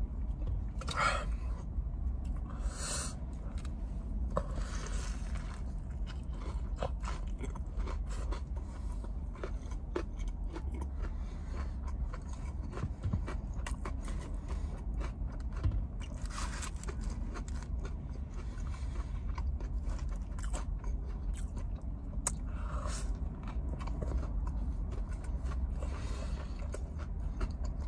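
Close-mic eating sounds: a person biting into and chewing crispy fried chicken, with irregular crunches of the breading, over a steady low hum.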